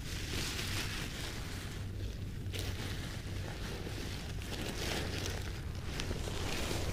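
Steady low rumble with a hiss that swells and fades, loudest in the first few seconds.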